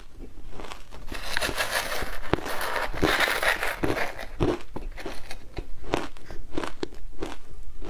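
Frozen matcha shaved ice being bitten and chewed close up: a dense, gritty crunching for a few seconds, then separate crunchy chews at about two a second.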